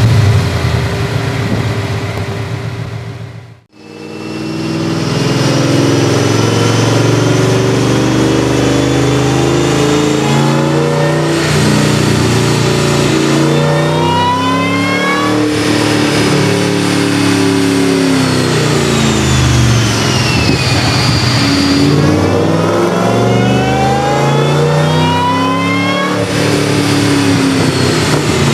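Supercharged 2006 Ford Mustang GT V8 with an M90 Roushcharger, long-tube headers and Stinger exhaust, revving through several hard pulls. The supercharger's high whine climbs in pitch with the engine and falls away as the revs drop. The sound cuts out briefly about four seconds in.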